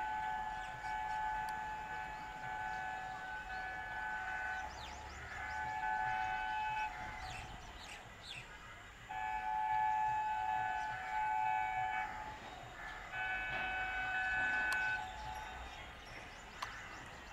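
Diesel locomotive's two-tone air horn sounding as the train approaches: a long blast that ends about four seconds in, then three more blasts, over a low rumble from the train.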